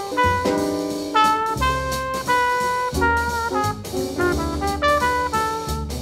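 Instrumental jazz background music with brass and a drum kit, a melody of held notes over a steady beat.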